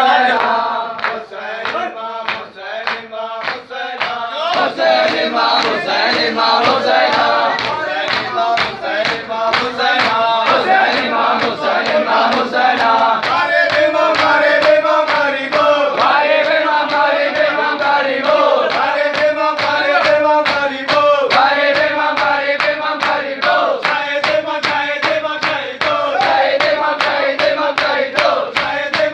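Group of men chanting a nauha (mourning lament) together, over a steady beat of hands striking chests in matam.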